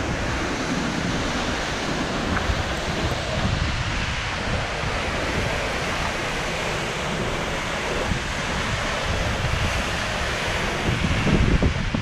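Steady rushing roar of a tall waterfall plunging into its pool, with wind buffeting the microphone in uneven low gusts that grow stronger near the end.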